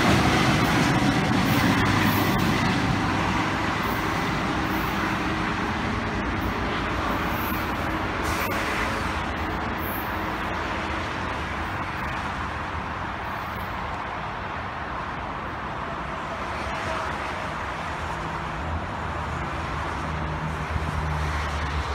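GO Transit diesel locomotive-hauled train pulling away, its engine and rail noise fading steadily into the distance. A low engine hum grows again near the end.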